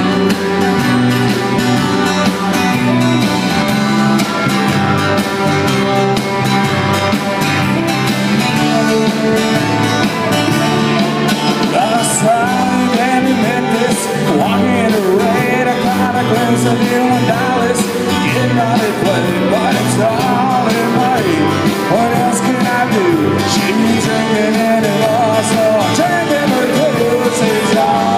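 Live band playing through a PA: strummed acoustic guitar, electric guitar and drums, with a man singing from about twelve seconds in.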